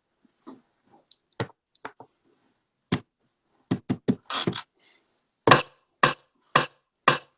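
Handling noise: about a dozen irregular taps, knocks and clicks, some sharp and some duller.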